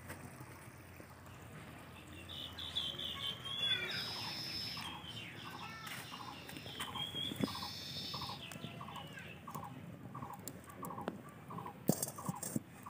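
Birds calling: a run of short notes repeated about twice a second, with higher chirps and whistles over it. A few sharp metal clinks from the cooking pan and serving utensils.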